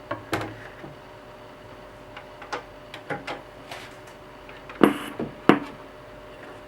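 Clicks and knocks of a vinyl record and turntable being handled, with two sharper knocks about five seconds in; no music is playing yet.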